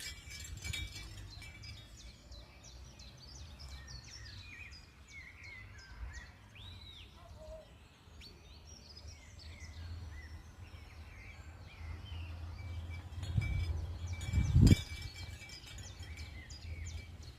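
Small birds chirping over a low rumble of wind on the microphone. A wind chime rings faintly near the start and again in the last few seconds, when a strong gust buffets the microphone, the loudest moment.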